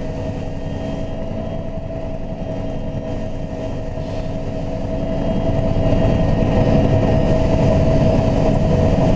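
Helicopter in flight, heard from on board: a steady engine whine over a fast low beat of the rotor. It grows louder about halfway through.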